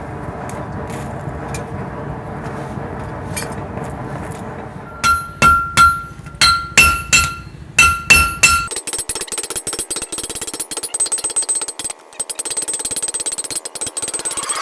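Hand hammer striking hot steel on an anvil: about ten sharp, ringing blows in quick runs, following a steady low rumble. Then a fast, continuous light clatter of rapid metal-on-metal ticking.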